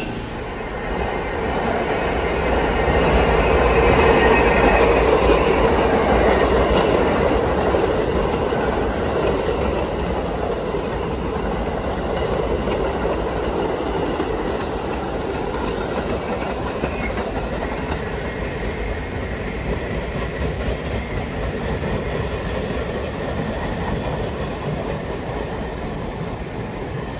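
New York City Subway train with R68 cars running on the tracks, its wheels clattering on the rails. The noise swells to its loudest about four seconds in, then runs steadily.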